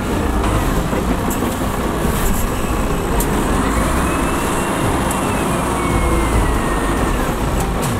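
A motor vehicle engine running under a steady, loud rushing noise, with a faint whine that rises and then falls in the middle.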